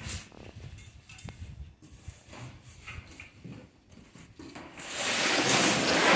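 Packaging being handled while an air conditioner is unboxed. Faint light knocks and rubs come first. From about five seconds in there is a loud rustling scrape of packaging.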